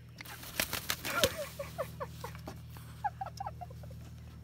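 A white cockatoo flapping its wings in a short flurry, followed by two runs of quick, short chirping notes that fall in pitch.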